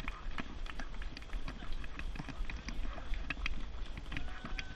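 Running footsteps of several runners on a tarmac path, a quick, steady patter of shoe strikes.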